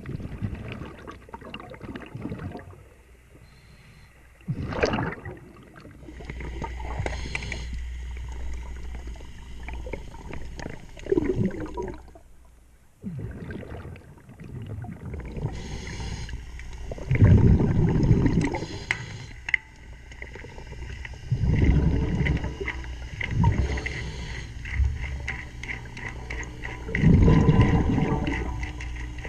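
Underwater diver breathing through a regulator: a loud burst of exhaled bubbles about every five to six seconds, with quieter stretches between and light clicks and knocks from work on the propeller.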